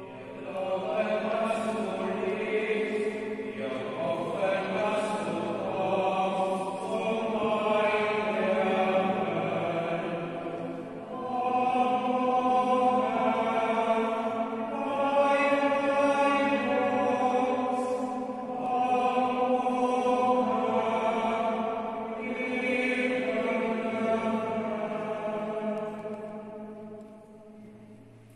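Sung liturgical chant at Mass, with long held notes in phrases of a few seconds that fade away near the end.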